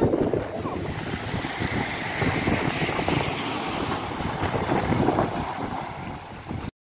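Sea waves breaking and washing up a pebble beach, with wind buffeting the microphone. The surf hiss swells about two seconds in, and the sound cuts off abruptly just before the end.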